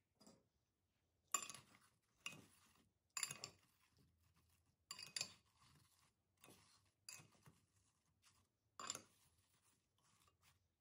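Metal spoon clinking and scraping against a glass bowl while tossing sliced apples with sugar. The strokes come in a string of about ten short knocks, roughly one a second.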